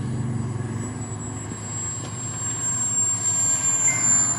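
Radio-controlled model jet's engine on landing approach: a steady high whine, slowly falling in pitch, growing louder toward the end.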